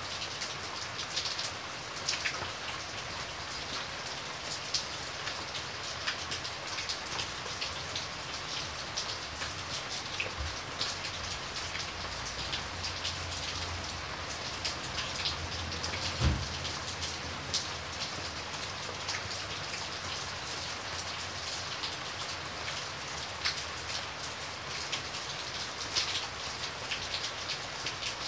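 Steady rain with many separate drops ticking close by. A low rumble rises in the middle, and a single heavy thump comes about halfway through.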